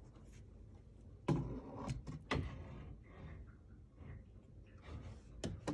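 Knocks and rattles of a tripod light stand being worked loose and pulled out of a puppy whelping box: a sharp knock about a second in, two more shortly after, and a quick pair near the end.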